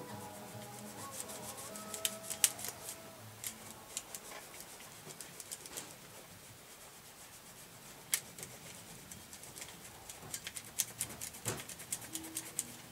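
Irregular sharp clicks and light scraping from working over the metal contact pins of a Rock-ola 443 jukebox's selector plate by hand to clean gunk from between the contacts. The clicks bunch up about two seconds in and again from about ten seconds on, and music plays faintly for the first few seconds.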